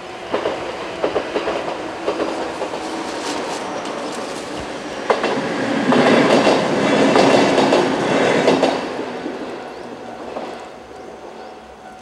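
A two-car JR 103-series electric train passing, its wheels clicking over the rail joints. The train grows loudest about six to nine seconds in, then fades away.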